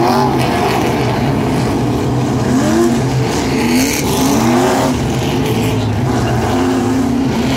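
A pack of street stock race cars running on the track. Several engine notes rise again and again as the cars accelerate past.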